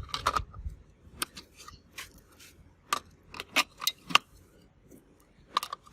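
Batteries being fitted into the plastic battery compartment of a toy bubble machine: a series of sharp, separate clicks and clinks as the cells are handled and pressed into place.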